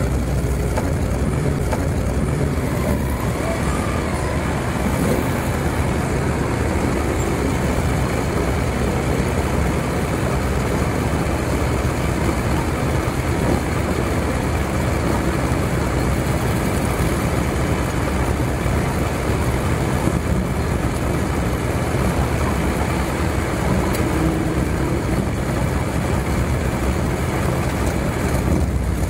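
Motorcycle engines running in slow, bunched-up traffic: a steady low drone with no let-up.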